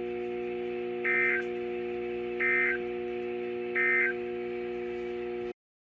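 Weather radio playing the Emergency Alert System end-of-message data code: three short digital bursts about a second apart, over a steady low hum, signalling that the special marine warning broadcast has ended. The audio cuts off abruptly near the end.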